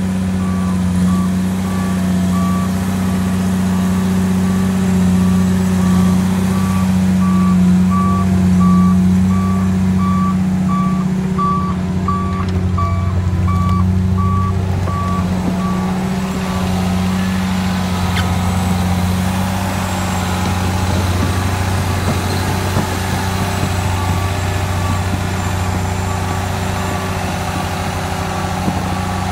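Tigercat LX822C tracked feller buncher's diesel engine running hard as the machine climbs onto a lowboy trailer, with a backup alarm beeping at an even pace for the first half and again near the end. Clatter from the steel tracks comes in over the engine in the second half.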